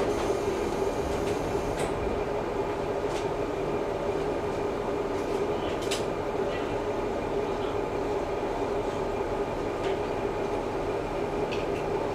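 Steady drone of a KiHa 11-100 diesel railcar heard from inside the cabin, with a constant hum and a few faint clicks.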